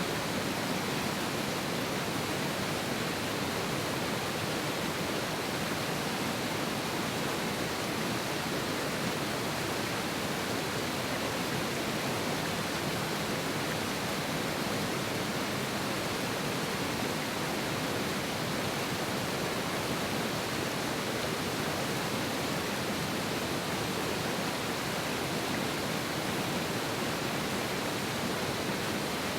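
Mountain river rushing strongly over rocks, a steady, even roar of water.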